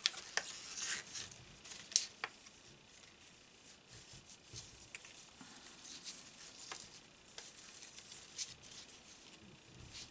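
Paper and ribbon being handled on a scrapbook page: faint rustling with scattered light taps and clicks, the sharpest about two seconds in.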